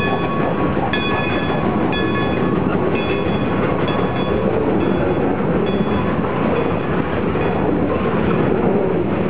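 Loaded freight cars rolling past with a steady, heavy rumble of wheels on rail. Brief high ringing tones come about once a second, mostly in the first half.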